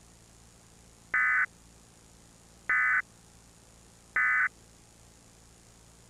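Emergency Alert System end-of-message data tones: three short, identical, buzzy electronic blips about a second and a half apart, marking the end of the alert. A faint steady hiss from the videotape runs underneath.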